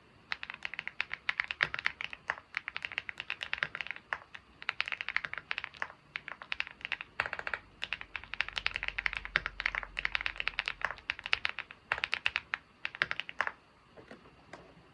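Typing on a computer keyboard: rapid, uneven runs of key clicks with brief pauses, stopping about a second and a half before the end, followed by a few faint taps.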